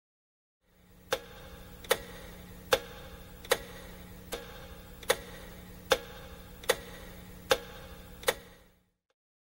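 Slow, regular ticking, about ten even ticks a little under a second apart, over a faint steady hum; it fades in just under a second in and fades out near the end.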